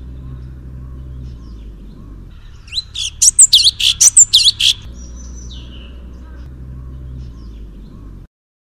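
Songbird song: a loud two-second burst of rapid, sharp whistled notes about three seconds in, with softer chirps before and after, over a steady low hum. The sound cuts off just before the end.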